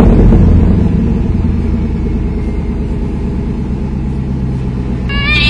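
Car engine running steadily, slowly easing off in level, then a cat meows loudly near the end.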